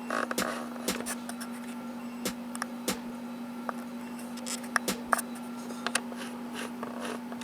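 Hard ABS plastic parts of a transformable robot figure clicking and knocking irregularly as they are handled and folded, over a steady low hum.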